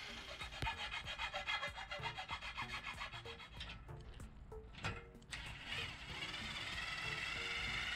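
Metal rasping on aluminum in quick repeated strokes, about four a second, as the cut edge of an aluminum tube is chamfered so it will not bind; the strokes stop about halfway, and a steadier sound follows.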